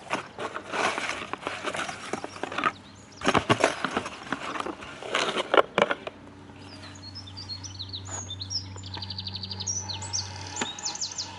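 Rustling fabric with sharp clicks and knocks as a folding solar-panel charger is unfolded, for about six seconds. Then birds chirp in quick high runs over a low steady hum.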